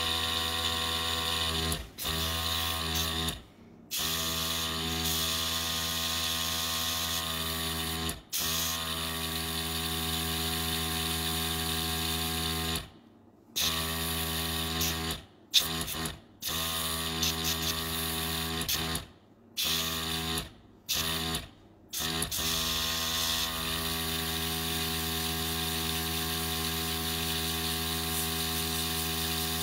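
Small airbrush compressor running steadily with a buzzing hum and a hiss of air from the airbrush as paint is sprayed onto a nail tip. The sound cuts out abruptly several times for a moment and comes straight back.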